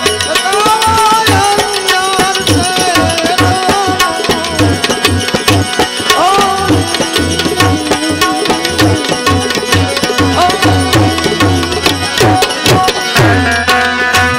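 Instrumental passage of devotional bhajan music: tabla keeping a steady beat under a melody line that slides in pitch.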